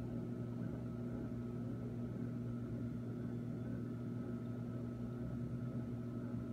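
Steady hum of running reef-aquarium equipment: a low drone with a fainter, higher steady tone above it and a light hiss.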